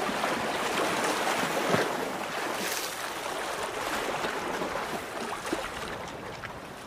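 Audience applauding, a dense steady patter of many hands clapping that fades away near the end.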